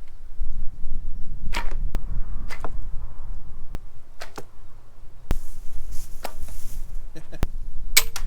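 Archery shots: arrows released and thudding into foam animal targets, a series of about ten sharp knocks and swishes spread over several seconds, over a steady low rumble.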